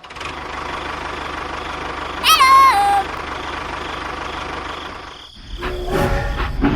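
Small engine running steadily, with a loud tone that steps down in pitch about two seconds in. A louder, rougher engine sound takes over about five and a half seconds in.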